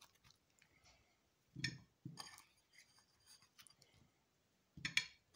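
Cucumber slices being put into a ceramic plate, with light clinks and taps against the plate and fork, and two louder knocks, one about one and a half seconds in and one near the end.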